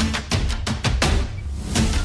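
Background music with a driving drum beat and heavy bass.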